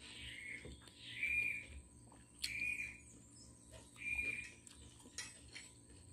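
Short high chirping animal calls, four of them at uneven spacing, each about half a second long, with a sharp click between them.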